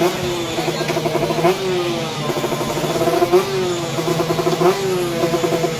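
Race-tuned Yamaha Sniper 150 single-cylinder engine revved on the stand: a steady, choppy running note broken about three times by a sharp throttle blip whose pitch jumps up and slides back down.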